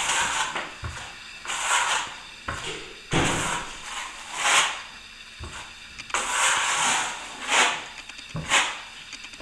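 Plastering trowel scraping wet filler across plasterboard in a series of irregular strokes, about one a second, applying a third coat over a taped crack.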